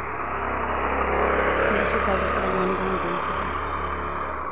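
A motor vehicle driving past close by on the road, its engine and tyre noise growing louder and then fading away.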